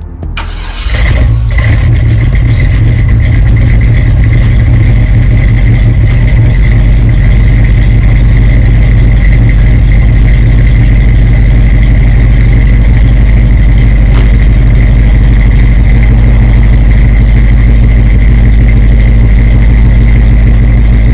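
Car engine starting, catching within about a second, then idling loudly with a deep, steady rumble. A faint steady high whine runs over the idle.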